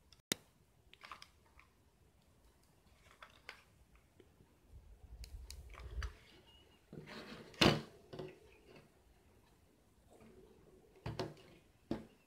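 Hands working a hot glue gun, wooden sticks and a plastic pipe: scattered clicks, taps and rubbing. There is a sharp click just after the start, and the loudest knock comes a little past the middle.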